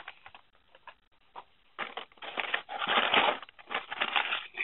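Carded die-cast toy cars in plastic blister packs being handled and slid against each other and against the cardboard case: irregular crinkling and scraping, busiest from about two seconds in.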